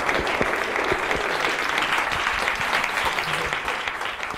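Audience applauding: many hands clapping together, starting to die away near the end.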